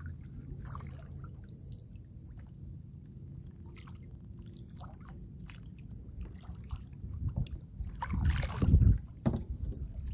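Kayak paddling: light drips and splashes of water from the paddle strokes, with a louder, longer splash about eight seconds in.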